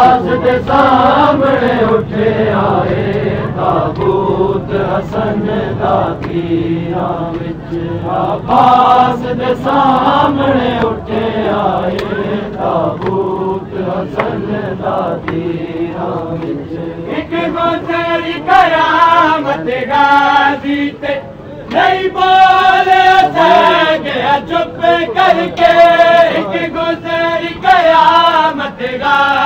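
A crowd chanting a noha, a Shia mourning lament, with many voices singing together in a repeating refrain.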